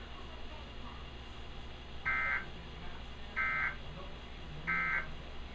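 Emergency Alert System digital data bursts played over TV audio: three short, identical buzzy bursts about a second and a half apart. They are the end-of-message signal that closes a Required Weekly Test.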